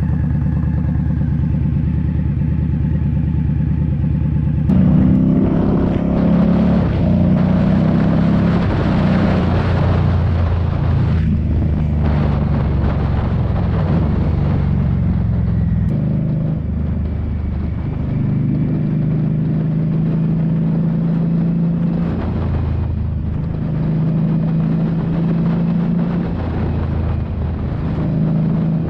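Indian Scout Bobber's V-twin engine under way: running low and steady at first, then pulling harder about five seconds in, with the pitch stepping through gear changes and wind rushing over the microphone as speed builds.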